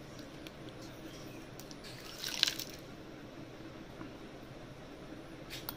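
Cooked river snails in gravy spooned onto a plate of rice: one short, wet clatter of shells about two seconds in, with a few small clicks around it.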